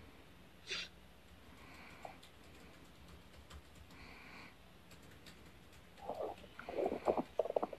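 Puppies at play: soft snuffling breaths, a brief high squeak about a second in, and a rapid run of short scuffling noises near the end.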